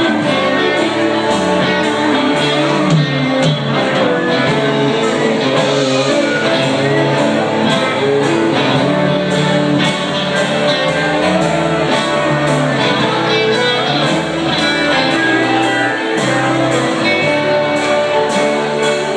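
Live band playing: acoustic and electric guitars, bass and drums, with a steady drum beat.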